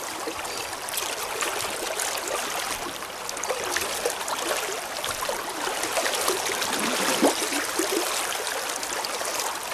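Fast river current rushing steadily close by, with one brief louder sound about seven seconds in.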